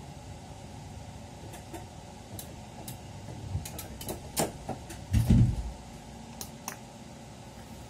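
Steady hum inside a standing train's driver's cab, with scattered clicks and knocks and one heavy thump about five seconds in.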